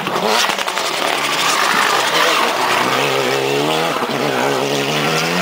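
Race car engine accelerating out of a tight corner, its pitch rising steadily as it pulls through the gear.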